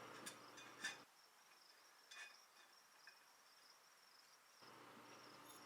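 Near silence: faint room tone with a thin steady high-pitched whine and a few soft clicks.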